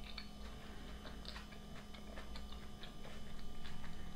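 Close-miked chewing of a mouthful of salad: scattered small wet mouth clicks and crunches, over a low steady hum.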